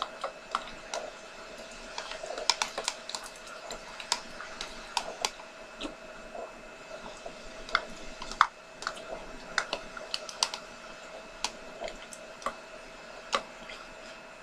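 A fork clicking and tapping against a slime container while stirring slime, in irregular sharp clicks.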